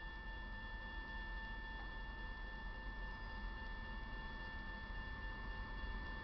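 Railroad grade-crossing warning bell ringing as a steady tone, the crossing activated for an approaching train while its gate arms lower.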